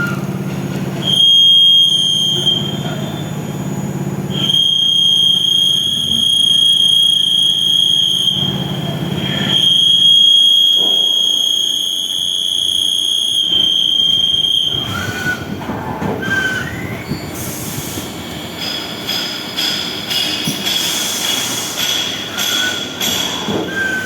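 CNC lathe turning metal, the cut giving a steady high-pitched squeal in three long passes with short breaks between. After the passes the squeal stops and gives way to a hiss with many small clicks.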